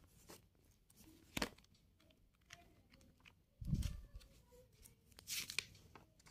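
A paper notebook and pens being handled: faint paper rustling with small clicks, a sharper click about a second and a half in, a low thump just before four seconds, and a short rustle a little after five seconds.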